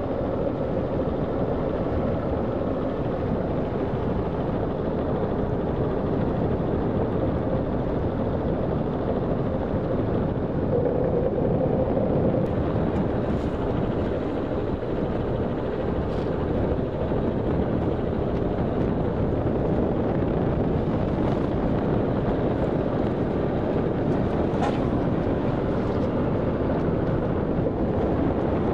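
Steady running of a chase boat's outboard motors at speed, with wind on the microphone.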